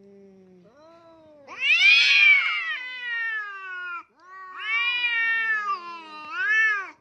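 Domestic cats in a face-off, yowling (caterwauling) at each other: a low, steady moan at first, then two long, drawn-out yowls that bend up and down in pitch, the second swelling again near the end. It is the threat call of two cats squaring up to fight.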